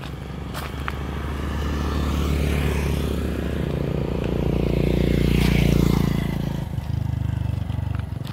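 A motor scooter passing close by on the road: its engine and tyre noise swell to a peak about five and a half seconds in, with a falling pitch as it goes past, then fade. A second motorcycle engine is heard near the end.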